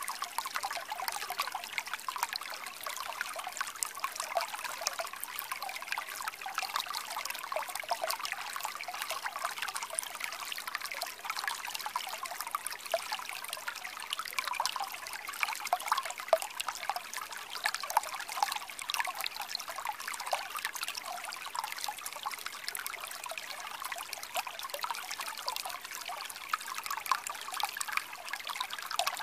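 Shallow stream running over stones: a steady rush of water thick with small splashes and gurgles.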